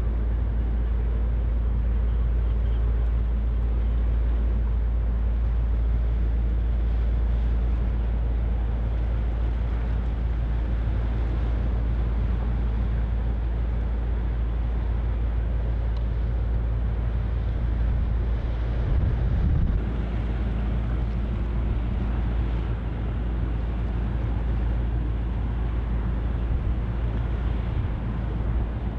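Steady low drone of passing ships' diesel engines, with a brief louder low rumble about two-thirds of the way through.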